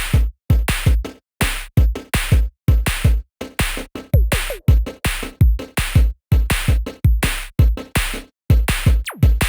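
Electronic background music built on a fast drum-machine beat: deep kick drums and crisp hi-hat hits in a steady rhythm.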